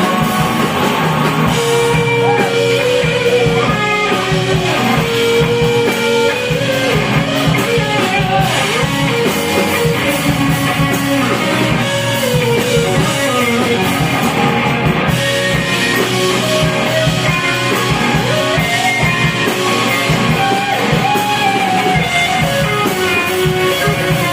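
Live rock band playing, with electric guitar lines over drums and bass; a mid-song instrumental passage with little or no singing.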